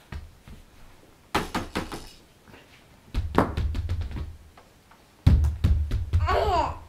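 Three bursts of rapid knocking and thumps, each lasting about a second, with a short high gliding squeal near the end.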